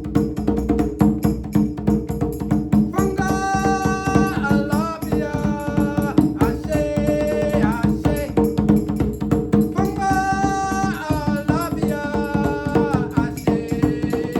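Djembe hand drumming in a fast, dense rhythm with a rattle. About three seconds in, a held melodic line enters in short repeated phrases over the drums.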